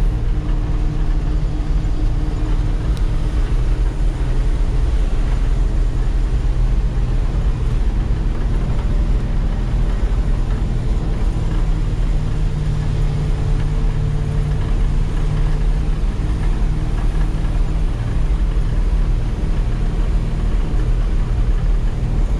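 Engine of a loaded Ford F800 grain truck running steadily as it drives, heard from inside the cab.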